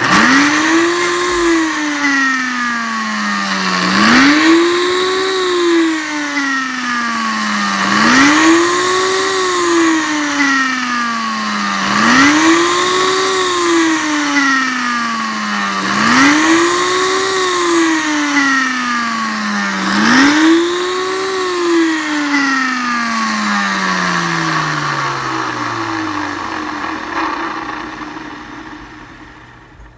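Ninja Chef blender chopping ginger root. The motor speeds up sharply about every four seconds, then drops slowly in pitch, six times over. After the last speed-up it winds down to a stop near the end.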